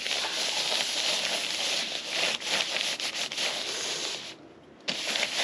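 A hand rubbing and pressing a sheet of paper down onto a paint-covered canvas: a steady papery rubbing hiss that breaks off briefly near the end as the sheet is lifted and set down again.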